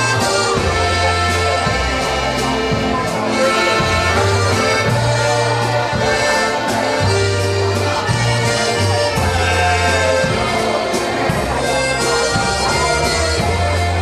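Live dance band playing a waltz, led by a button box accordion, over a steady bass line that changes note about every second.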